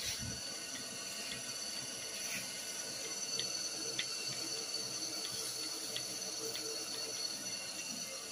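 Steady running or spraying water, or liquid coolant, over metal parts, under a constant high machine whine, with scattered small ticks.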